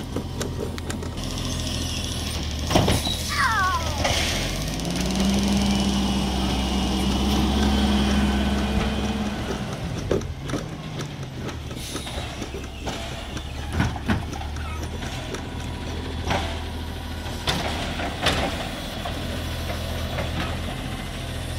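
Natural-gas automated side-loader garbage truck idling, its engine speeding up and holding steady for several seconds before settling back, as the truck works its bin-lifting arm. A short falling squeal comes a few seconds in, and scattered knocks follow in the second half.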